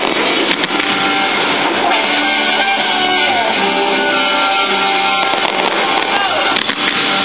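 Classic rock music with strummed electric guitar, with a few sharp firework pops.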